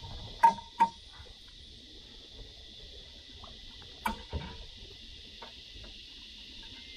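Sharp knocks, a quick pair near the start and another about four seconds in, each with a short ring, over a steady high hiss.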